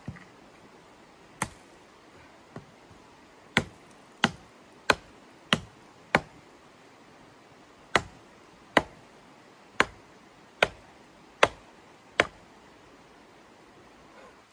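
Hatchet chopping into a thin wooden pole: about a dozen sharp, separate strikes, roughly one every second or a little faster.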